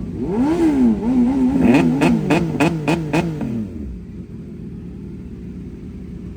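CFMoto 675SR-R's three-cylinder engine through an Austin Racing full exhaust, revving up and dropping back twice. It then gives a quick run of short rev blips with sharp pops as the engine note falls away, slowing. After about four seconds only a steady low hum remains.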